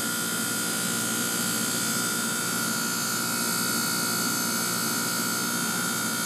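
Trane packaged heat pump running: a steady machine drone with a constant high whine through it.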